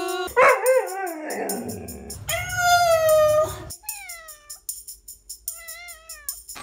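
Pets' drawn-out calls, cats meowing, each long call sliding down in pitch, three or four in a row. Under them runs a Christmas pop backing track with a steady jingling beat.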